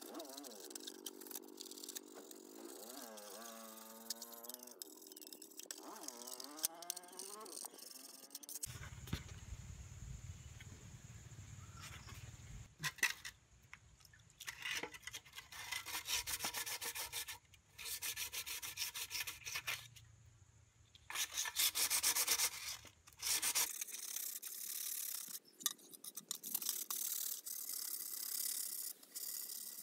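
A toothbrush scrubbing the embossed metal lid of an old coin box, then bursts of rapid back-and-forth rubbing on the metal box.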